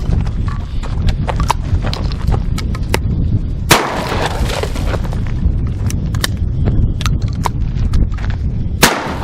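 Two shotgun blasts about five seconds apart, each a sharp crack followed by a second of echo, from a single-shot shotgun firing 3-inch magnum buckshot. A steady low rumble runs underneath, with small clicks between the shots.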